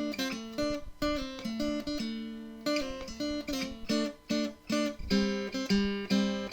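Intro music: acoustic guitar picking a quick run of notes, ending in a ringing chord.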